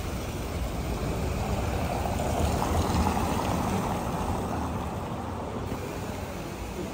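Street traffic: a vehicle passes, its noise swelling two to three seconds in and then fading, over steady street noise.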